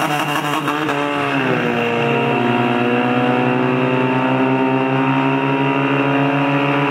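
Portable fire pump's petrol engine running at high revs as it pumps water into the attack hoses. Its pitch wavers and slides down about a second in, then holds steady.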